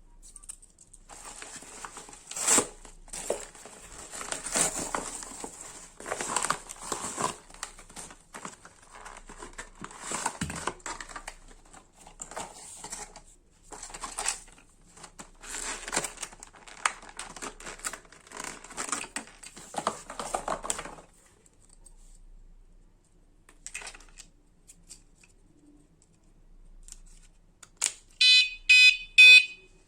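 Packaging crinkles and rustles in irregular handling for about twenty seconds. Near the end, an electronic bicycle alarm gives three short beeps.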